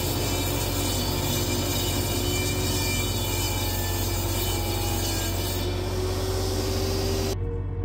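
Electric wood planer running with a steady, even whir and hiss; it cuts off abruptly near the end.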